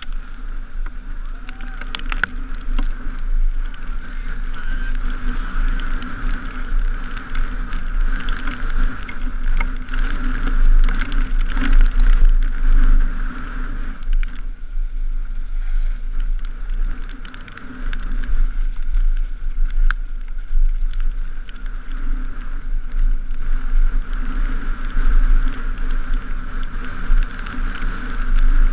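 Mountain bike ridden over a rough trail, heard from a helmet-mounted camera: steady wind rumble on the microphone, with constant rattles and knocks from the bike.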